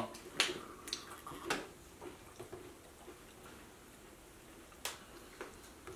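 Small plastic tasting cups handled, sipped from and set down on a table: a few faint taps and clicks, then one sharper click a little before the end.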